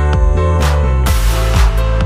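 Electronic background music with a steady beat of kick drum and snare over sustained synth tones, and a burst of hiss about a second in.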